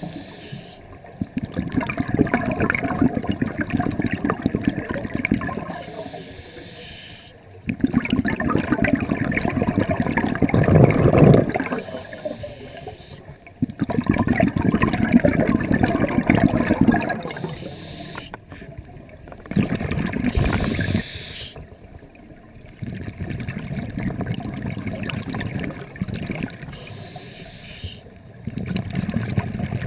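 Scuba diver breathing through a regulator: loud bubbling exhalations lasting a few seconds each, about every five to six seconds, with quieter, hissing inhalations between. Recorded through a GoPro Hero2's underwater housing.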